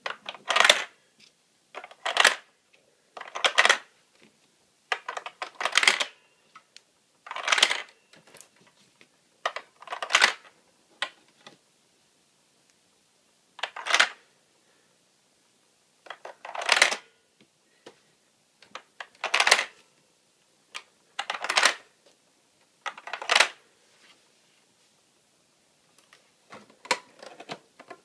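Small plastic toy drink cans clacking into the plastic loading racks of an Anpanman toy vending machine: a dozen or so short, sharp plastic clatters at irregular gaps, with quiet between them.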